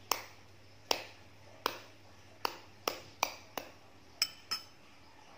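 Nine sharp, bright taps of a metal spoon at uneven intervals, each ringing briefly.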